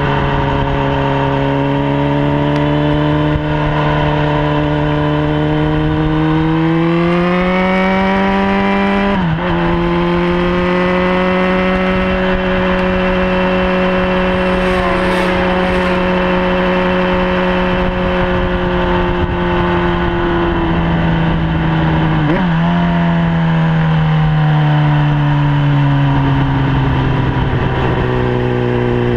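Sport motorcycle engine at speed on a racetrack, heard from the bike itself with wind rush on the microphone: the revs climb, break sharply at a gear change about nine seconds in, hold high and steady, then fall away from about twenty seconds with another break as the bike slows.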